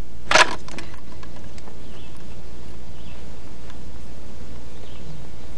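M72 rocket launcher being readied by hand: one sharp clack about half a second in, then a few lighter clicks, over a steady low hum.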